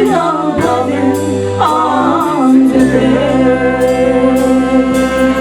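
Live band playing: a singer's wavering melodic line gives way to a long held note, over bass and drums.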